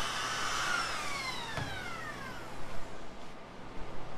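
Makita 18V cordless compact router's motor whining at speed, then winding down in pitch over about two seconds as it coasts to a stop: the battery has gone dead.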